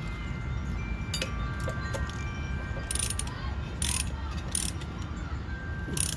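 Metal parts of a tiller's mule drive being handled and fitted by hand: clinking and faint ringing of metal, with a few short rasping scrapes in the middle and near the end, over a steady low rumble.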